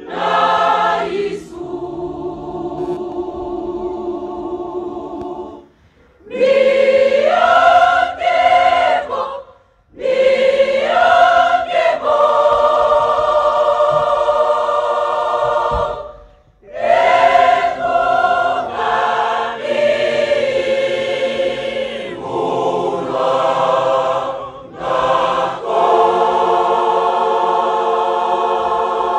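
Large church choir singing a hymn together in long held phrases, with a few short breaks between phrases.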